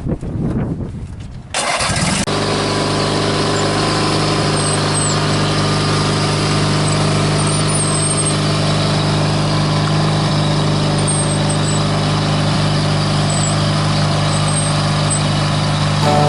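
Custom riding lawn mower's engine starts up about two seconds in, then runs at a steady, unchanging speed.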